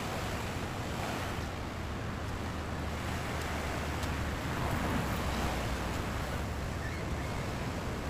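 Steady wash of sea surf against the rocks, with wind rumbling on the microphone.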